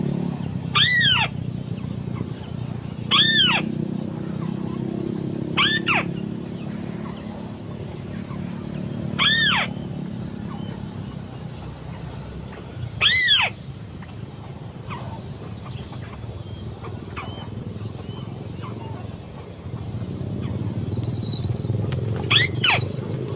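White-browed crake calling: a short arched note repeated six times at irregular gaps of a few seconds, with a few fainter notes between, over a steady low rumble.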